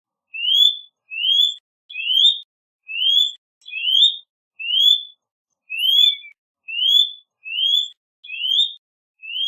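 Eurasian nutcracker calling: a short rising note, repeated evenly about eleven times at a little more than one call a second.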